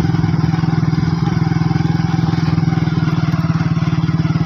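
Small motorcycle engine running steadily under way, heard close from on the bike, with an even, rapid pulse from the exhaust.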